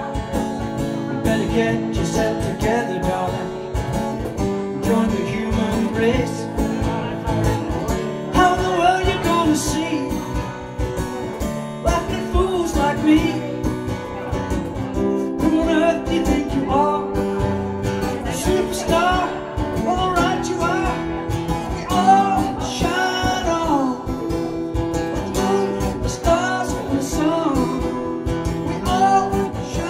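A live song: a man singing while strumming an acoustic guitar, with a cajón keeping the beat.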